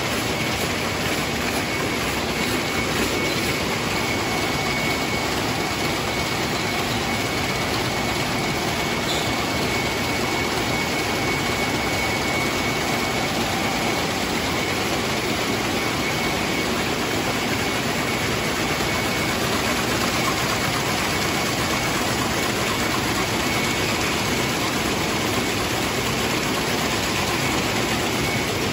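Water-jet weaving looms running, a dense, steady mechanical noise with a faint high tone held throughout.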